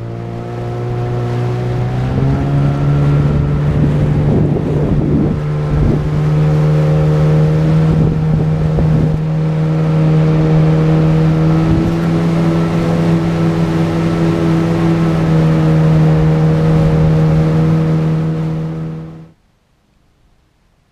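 A small boat's outboard motor running at speed, with water rushing past the hull. The engine note rises over the first couple of seconds, then holds steady, and cuts off suddenly near the end.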